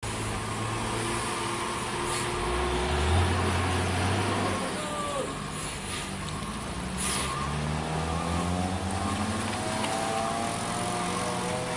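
Diesel engine of a box truck labouring slowly up a steep wet hairpin, its pitch climbing over the last few seconds, with short hisses of air about two and seven seconds in.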